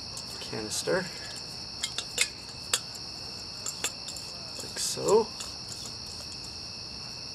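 Scattered small metallic clicks as an Optimus Crux stove is screwed onto an LPG gas canister, over a steady high-pitched trill of crickets.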